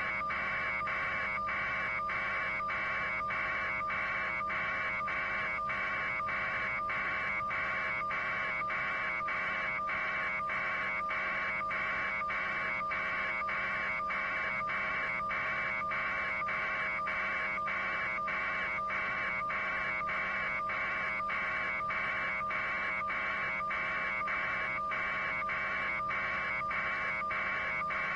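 Steady electronic buzz and hiss on a live news-helicopter audio feed, pulsing with short regular dips about twice a second over a constant low hum.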